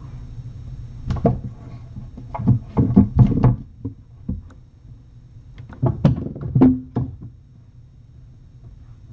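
Kitten scrambling and bumping about right beside the microphone in a fleece-lined cabinet: three short bursts of thumps and scuffs over a steady low hum.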